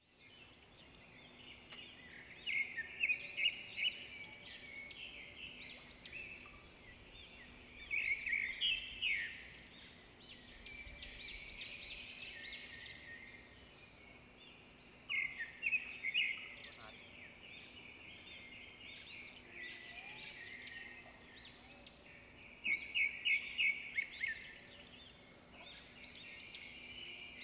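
Birds singing. Loud bursts of quick, high chirps come four times, about every seven seconds, with softer twittering in between.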